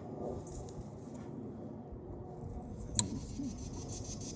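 Handling noise of a battery cable's scored insulation being flexed and pulled off the copper wire, with one sharp click about three seconds in.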